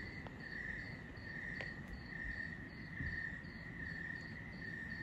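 Frogs calling in a night chorus: one call pulses steadily about twice a second, with a fainter, faster, higher chirping over it.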